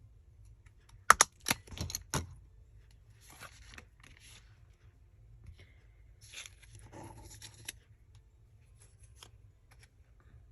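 Hands working with paper and small crafting supplies: a quick run of sharp clicks about a second in, then soft rustling and crinkling twice.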